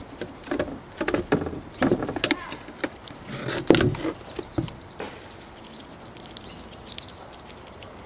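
Irregular clicks and scrapes for the first five seconds, loudest about three and a half seconds in: a grey squirrel scrabbling on concrete as it seizes and shifts a birdseed cake. After that it goes quieter.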